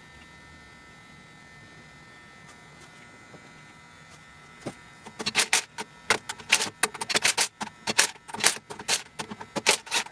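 Faint steady hum, then from about halfway a quick, irregular run of sharp clicks and knocks from work on the engine's parts.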